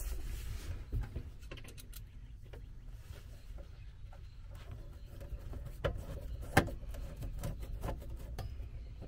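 Faint scattered clicks and light taps of a hand screwdriver and screws as a converter charger is screwed down, over a low steady hum.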